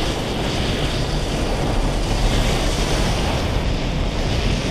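Steady rushing of a massive ocean wave and wind, with a deep rumble underneath: the sound of a giant tsunami surging across open sea.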